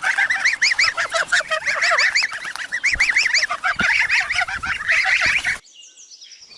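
Goslings peeping: a rapid, dense run of high, short cheeping calls, several a second and overlapping. It cuts off suddenly near the end, leaving only a faint background.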